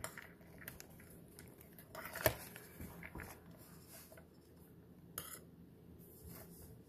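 Metal teaspoon stirring fat-moistened dry dog kibble in a stainless steel bowl: faint scraping and rustling of the kibble with a few light clinks of spoon against bowl, the sharpest about two seconds in.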